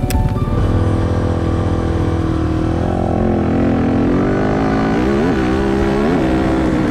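Rally motorcycle engine pulling away along a sandy track, its revs rising and falling as it accelerates, with quick rev surges about five and six seconds in.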